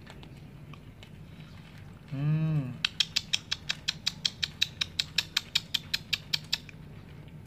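Cats crunching dry kibble: a rapid, regular run of crisp crunches, about five a second, that starts about three seconds in and stops shortly before the end. Just before it, a brief low hum rises and falls in pitch.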